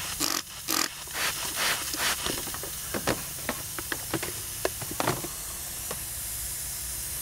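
Hand spray bottle squirting soapy water onto a leaking Schrader valve fitting, about five quick squirts in the first two seconds. Scattered small clicks follow over a steady hiss.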